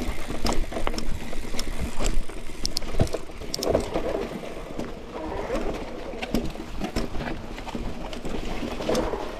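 Mountain bike ridden over a rough, wet trail: steady tyre and trail noise with frequent short rattles and clicks from the bike.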